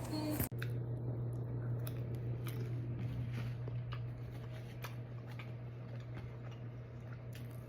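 Close-up chewing and crunching of garlic Parmesan pizza rolls: irregular small clicks and wet mouth noises over a steady low hum. The sound drops out briefly about half a second in.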